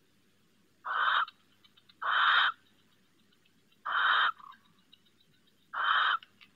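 Barn owl giving four short, harsh, rasping screeches, each about half a second long, spaced a second and a half to two seconds apart.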